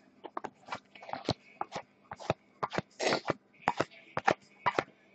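2014 Topps Prime football trading cards being flipped through by hand: a quick, irregular run of sharp clicks and short rustles, with one slightly longer rustle about three seconds in.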